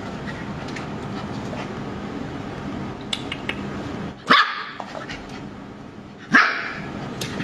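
A puppy barks twice, two short sharp barks about two seconds apart.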